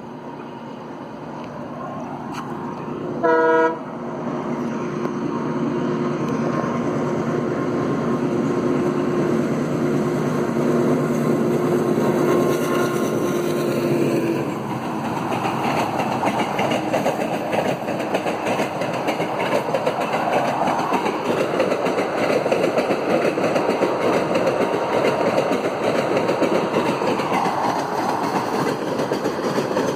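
WDM3D diesel locomotive running through a station without stopping: a short horn blast about three seconds in, then the engine's steady drone growing louder as it approaches. From about halfway, the passenger coaches rumble and clatter over the rails as they pass.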